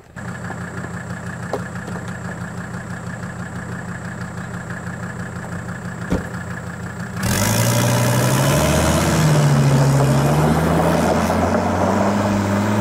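Old boxy Mercedes-Benz sedan's engine idling steadily. About seven seconds in it gets suddenly louder as the car pulls away over gravel, the engine note rising and falling as it revs.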